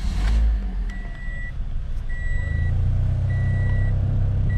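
A 2017 Toyota Corolla's 1.8-litre engine starting up, then a low vibrating hum that swells about two and a half seconds in, which the owner takes for a worn-out AC blower motor. A dashboard warning chime beeps steadily, about once a second.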